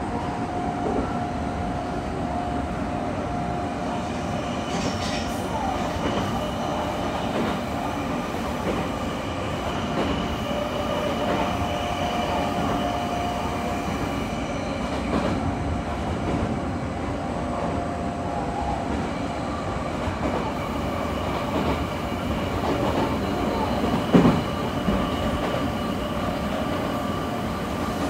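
Odakyu 3000 series electric train running at speed, heard from inside the passenger car: a steady rumble of wheels on rail, with a held whine at times and occasional rail-joint knocks, the loudest about 24 seconds in.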